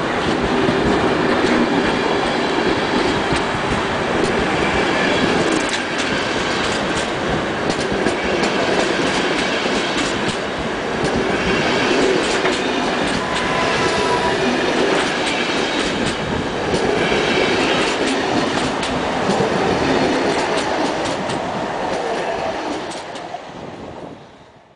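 Passenger coaches of a departing express train rolling past close by, their wheels clacking over rail joints with a steady rumble. The sound fades out near the end.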